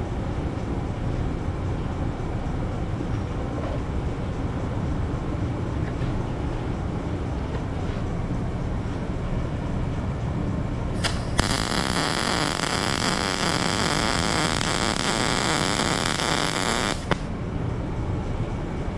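Wire-feed welder arc crackling and hissing for about six seconds, starting about eleven seconds in and cutting off suddenly. The bead is run along an edge of a small metal die with the wire feed speed turned down to 140, and the welder judges it to have good penetration. A steady low shop hum runs underneath.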